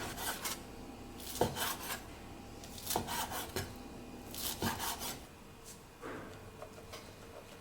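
Rasping, scraping strokes of kitchen food preparation, in bursts about every one and a half seconds, dying down about five seconds in.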